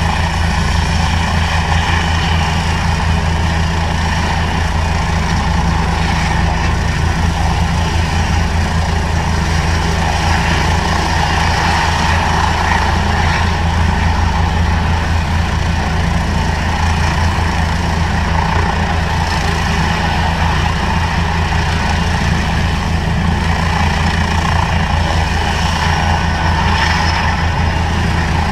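An engine idling steadily: a constant low hum with a faint whine above it, unchanging throughout.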